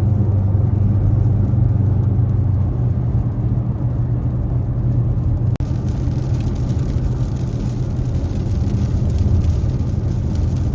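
Car driving along a road: steady low engine and road rumble, broken by a momentary dropout about five and a half seconds in, after which a little more hiss comes in.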